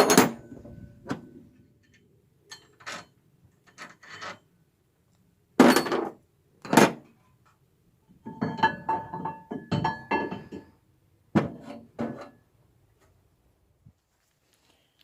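Metal hand tools knocking, scraping and clinking against engine parts in separate short bouts, the loudest about six seconds in. A ringing metallic clink comes around nine to ten seconds in.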